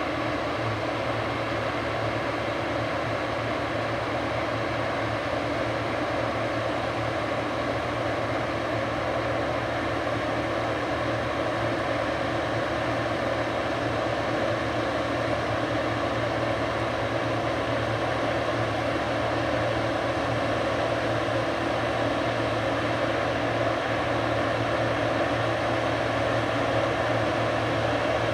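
Large diesel harvest machinery running steadily: a constant engine drone with a low hum and an even mechanical rush, with no change in pitch or load.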